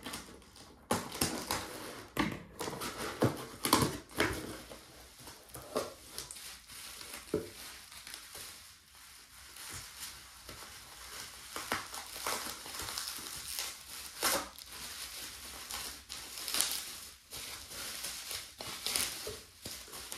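Bubble wrap crinkling and rustling irregularly as hands pull a wrapped china plate from a cardboard box and unwrap it, with busy bursts of crackling in the first few seconds and again about halfway through.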